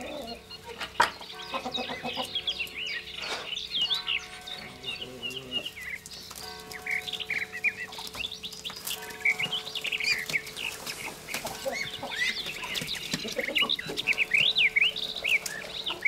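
Farmyard poultry: chickens clucking amid a constant stream of short, high chirps.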